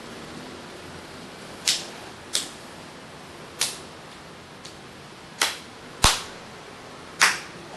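Six sharp clicks at uneven intervals over a steady hiss; the fifth one, about six seconds in, also carries a deeper thump.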